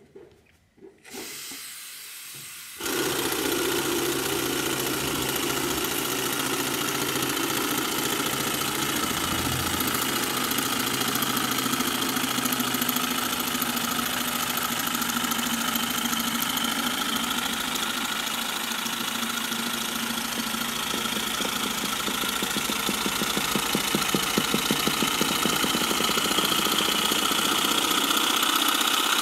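3D-printed single double-acting oscillating-cylinder air motor running on air from a balloon: a rapid, even chugging with a constant hiss of escaping air, which the maker calls very leaky. It starts suddenly about three seconds in after a few faint handling clicks, and a higher tone rises in pitch near the end.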